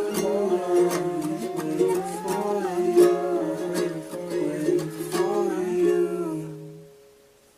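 Background music with a plucked ukulele melody, fading out near the end.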